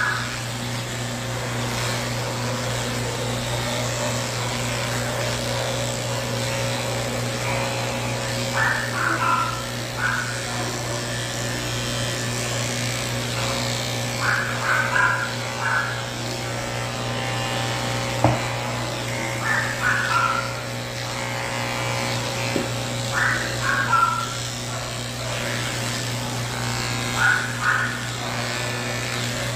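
Cordless electric pet clippers running with a steady hum while shaving matted fur off a cat. Short higher-pitched sounds recur every four or five seconds, and there is a single sharp click about eighteen seconds in.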